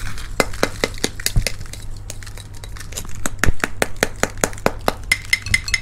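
Shell of a salt-roasted crab being broken apart, with a run of sharp crackles and snaps, several a second, and a few dull thuds.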